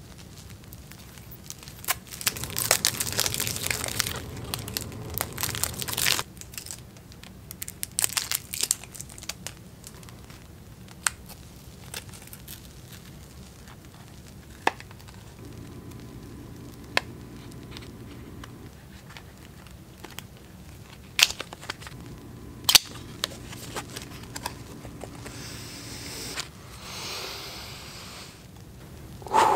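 Cellophane wrapping on a deck of playing cards crinkling and crackling as it is peeled off by hand, loudest in two stretches early on, then scattered small clicks. Near the end there is a softer tearing as the paper tuck box is opened.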